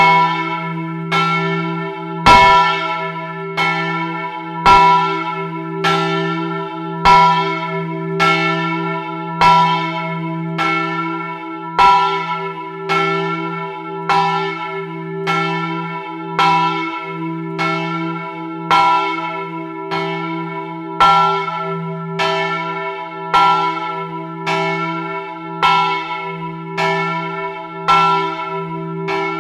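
A single large bronze church bell swung full-circle by its electric motor in a steel frame, its clapper striking about every 1.2 seconds, alternately louder and softer as it hits each side. A deep hum note and bright upper tones ring on between the strokes.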